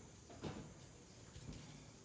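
Two soft thuds of footsteps on the ground, about half a second and a second and a half in, over a faint steady high insect drone.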